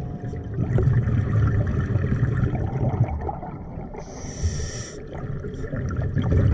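Scuba breathing through a regulator, heard underwater. A low burble of exhaled bubbles runs for about two seconds, then a hissing inhale comes about four seconds in.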